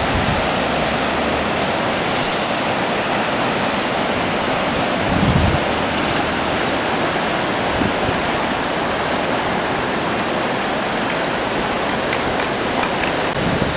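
Fast river water rushing steadily through foaming rapids below a weir, with a brief low bump about five seconds in.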